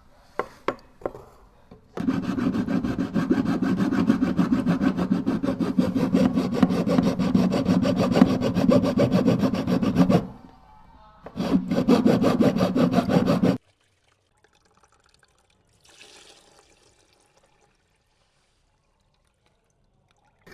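A few light clicks, then fast back-and-forth scraping strokes in two stretches, about eight seconds and then about two, each stopping abruptly.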